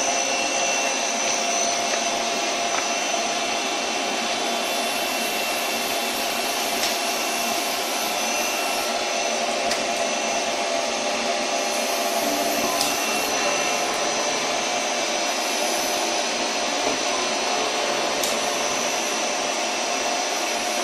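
Doosan CNC turning lathe running: a steady whirring machine noise with a high whine over it and a few faint ticks.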